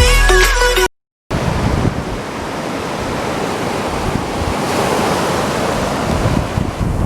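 Background music cuts off about a second in; after a short gap, ocean surf with wind buffeting the microphone, a steady rushing noise.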